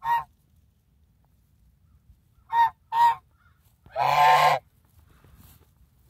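African goose honking: a short honk at the start, two quick honks about two and a half seconds in, and a longer honk of about half a second around four seconds in.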